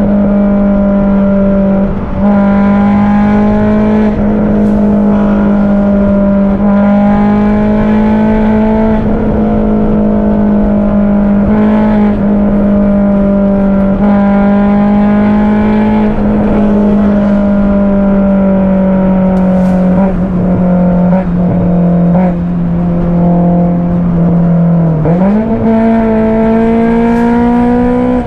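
Honda S2000's four-cylinder VTEC engine, through an aftermarket Varex exhaust, pulling at a steady note while cruising at highway speed, heard from inside the cabin over tyre and wind noise. About 25 seconds in, the note dips briefly and then settles higher: a gear change down.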